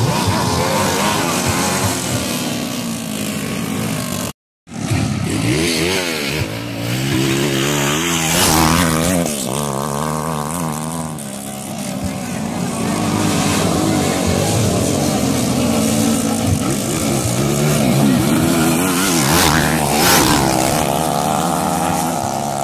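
Several motocross motorcycle engines revving, their pitch rising and falling over and over as they race on the dirt track. The sound cuts out for a moment about four and a half seconds in.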